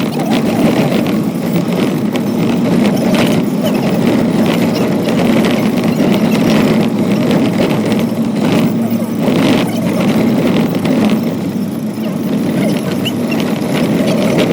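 A vehicle's engine running steadily, a continuous low hum with a few brief louder moments around the third and ninth seconds.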